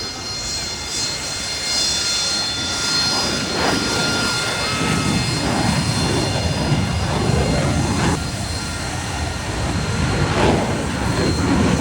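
Harrier jump jets' Rolls-Royce Pegasus turbofan engines running: a steady jet rush with a high whine of several steady tones over it.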